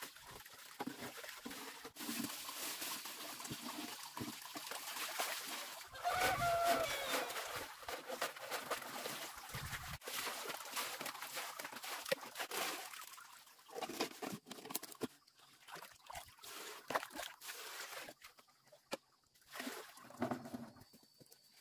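Water poured from a plastic dipper, splashing over leafy greens in a plastic basin, mixed with plastic bags crinkling as they are handled. A chicken clucks about six seconds in, and there are a few knocks near the end.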